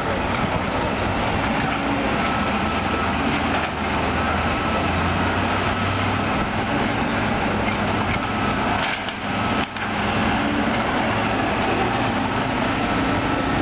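Wind rushing over the microphone, with the diesel engines of demolition excavators running steadily underneath.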